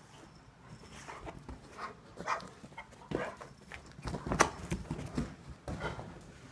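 A dog playing roughly with a cat on sofa cushions: irregular thumps and scuffles of paws and bodies on the upholstery, loudest about four seconds in.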